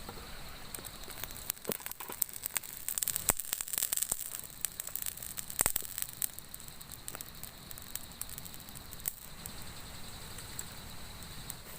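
Wood campfire crackling, with irregular sharp pops that come thickest in the first half.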